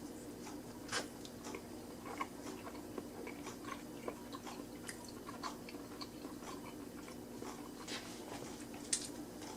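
A person chewing a mouthful of breakfast taco: faint, scattered small clicks and crunches, the sharpest about a second in, over a steady low hum.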